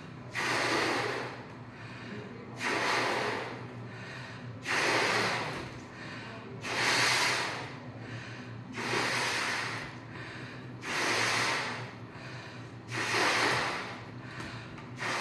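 A woman inflating a large latex balloon by mouth: a loud rushing breath about every two seconds, seven in all, as she draws in air and blows it into the balloon.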